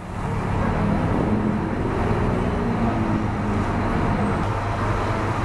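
Large coach's diesel engine idling steadily, a low even hum, fading in right at the start.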